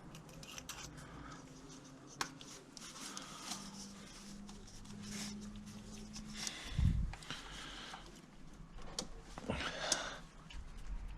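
Hands fitting an ignition lead in an engine bay: rustling and small clicks of the lead and its rubber boot being handled and pushed onto the coil pack, with a faint low hum in the middle and one dull thump about seven seconds in.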